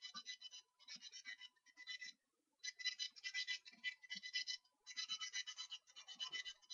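Scratching and rubbing close to the microphone, in bursts of half a second to a second with short pauses, the longest pause a little after two seconds in.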